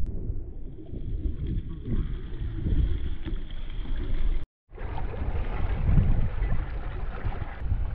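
Wind buffeting the microphone over choppy water splashing around a fishing kayak as it is paddled. The sound cuts out for a moment about halfway through.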